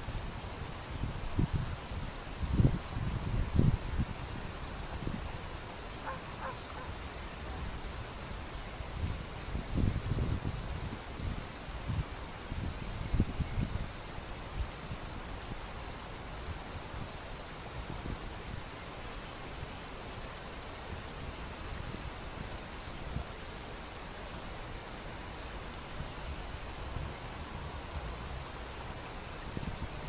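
Shallow river rushing over stones as a steady wash of water, under a continuous high-pitched insect trill. Low rumbles of wind on the microphone come and go in the first half.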